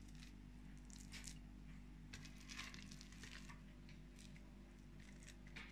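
Faint, soft scraping and squishing of a spoon scooping cooked wheat porridge out of a multicooker's bowl, in a few scattered strokes over a low steady hum.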